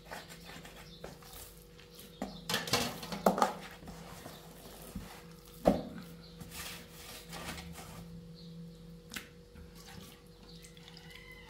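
Water splashing with clinks and knocks of dishes, the loudest in a cluster about two and a half to three and a half seconds in and a single sharp knock near the middle, over a steady low hum.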